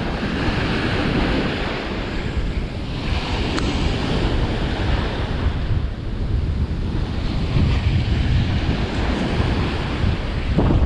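Ocean surf breaking and washing up the beach, swelling and easing as waves come in, with wind buffeting the microphone.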